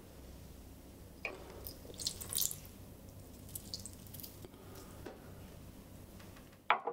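Water poured from a small cup into a potted plant, trickling and dripping onto the soil in scattered small spatters. A short, sharp noisy sound comes just before the end.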